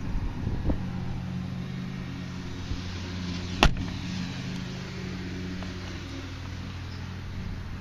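A car door shutting once with a sharp clunk about three and a half seconds in, over a steady low hum like an idling engine.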